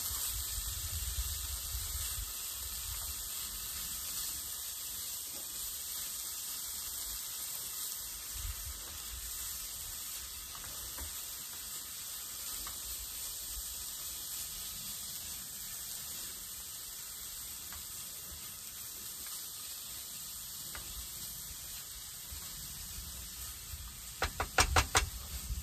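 Grated cauliflower frying in bacon fat in a pan on a camp stove: a steady sizzling hiss while it is stirred and turned with a spatula. Near the end there are a few sharp knocks of the utensil against the pan.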